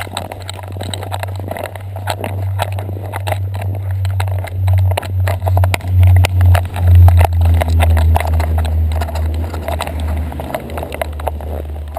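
Handling noise from a GoPro housing strapped to a dog walking in snow: irregular knocks, clicks and rubbing as the camera jostles against its fur. Under it runs a low rumble that swells to its loudest about six to eight seconds in, then eases.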